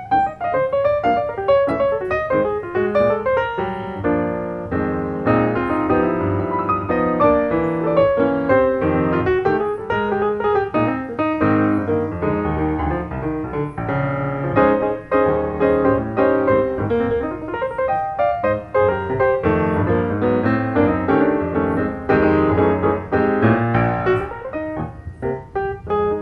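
Background music: piano playing a flowing melody with chords.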